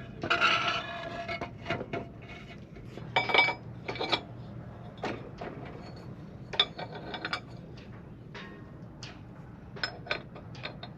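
Metal parts and tools clinking and rattling during hand reassembly of a windlass: scattered sharp clinks with a short metallic ring, in small clusters a few seconds apart, the loudest near the start.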